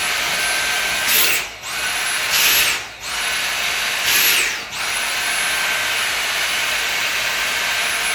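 Dyson V7 Motorhead Origin cordless stick vacuum running, a loud high-pitched motor whine over a rush of air. Three times, about a second, three and four and a half seconds in, a brief louder rush comes, the motor cuts out and then spins straight back up, as the trigger is released and pressed again.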